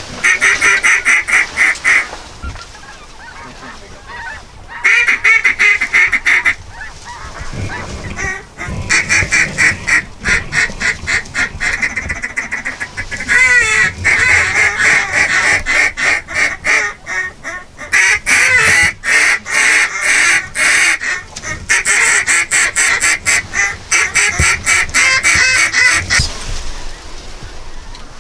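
A flock of geese honking: dense, rapid, high-pitched calls in runs of several seconds with short lulls between.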